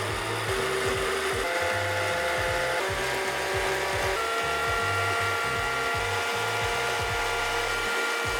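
Background music with a steady beat and held chords that change every second or so. Near the end the whole sound slides down in pitch.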